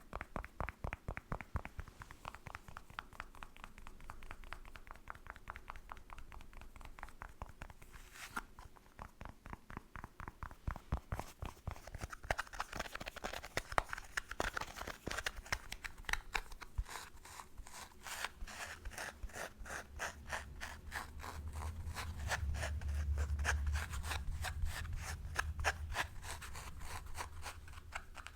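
Rapid fingernail tapping and scratching on facial-care product packaging, a dense run of sharp clicks with a low rumble in the second half.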